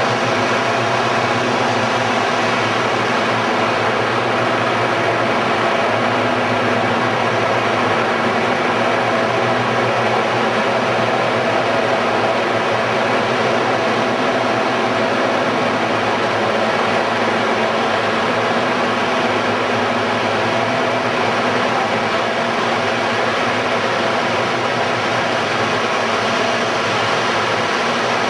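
A steady, unchanging hum and hiss that fades in just before the start and holds at the same loud level throughout.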